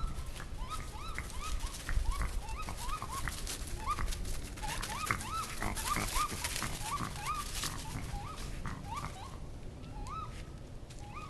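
Unidentified animal calls: many short, rising yelping notes, several a second and overlapping as if from more than one animal, thinning out near the end.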